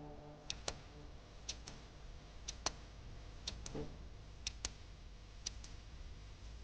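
Steady mechanical ticking: a pair of quick sharp clicks about once a second, over a low steady rumble.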